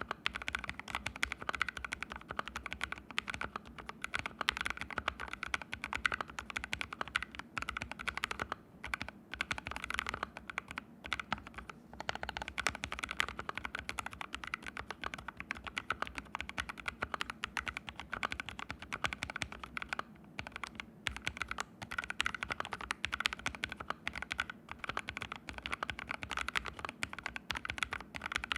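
Rapid, continuous typing on an ABKO AR61 mechanical keyboard fitted with fully lubed Haimu Sea Salt switches, set on a bare floor with no mat underneath. There are a few brief pauses between runs of keystrokes.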